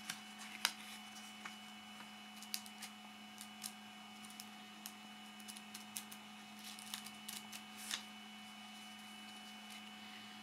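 Light clicks and rustles of a cardboard booklet of pH test paper strips being handled and flipped open, over a steady hum. The handling noises stop about eight seconds in.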